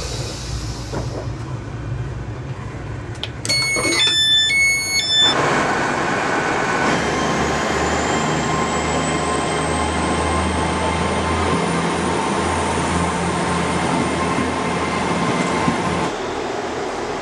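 Passenger train noise: a short run of electronic beeps at several pitches about three and a half seconds in, then a steady rumble with a whine that rises in pitch over a few seconds and holds.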